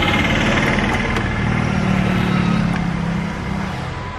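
Another motor vehicle's engine running and passing by, swelling and then fading away near the end.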